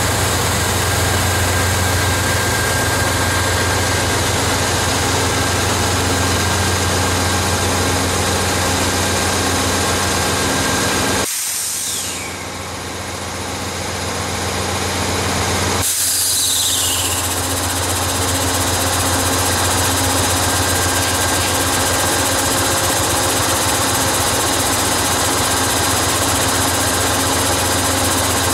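Amtrak diesel-electric locomotives, a GE P42DC Genesis and a GE P32-8 unit, running steadily with a deep, even engine drone. About eleven seconds in the sound drops off sharply for a few seconds, with two brief falling squeals, then the drone comes back.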